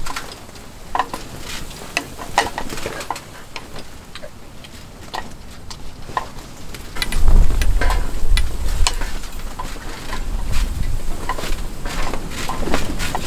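A knife and utensils clicking and scraping on a plate in scattered sharp ticks. From about seven seconds in, a low rumble of strong wind comes in and keeps on under the clicks.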